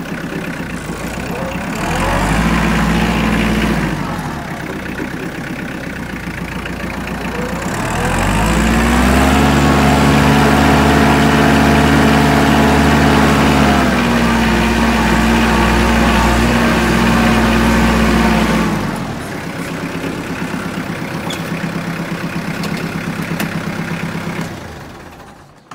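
Kubota compact tractor's diesel engine running while it carries a round bale on its front loader. It revs up briefly about two seconds in and again for about ten seconds from eight seconds in, then drops back to idle and stops just before the end.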